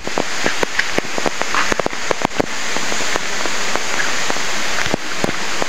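Steady rushing hiss of a waterfall and river, with irregular sharp clicks and knocks of footsteps on the stony trail, thickest in the first half and again about five seconds in.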